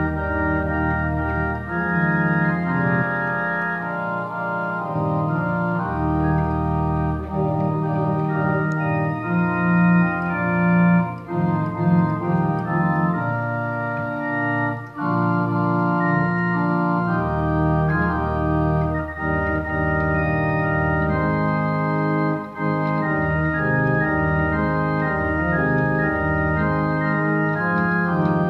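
Church organ playing a hymn: sustained full chords that change from one to the next over a strong bass line, with a melody moving above.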